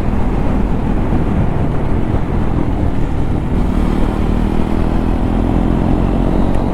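KTM Duke 390's single-cylinder engine running under way with its dB killer removed, a loud, steady exhaust note.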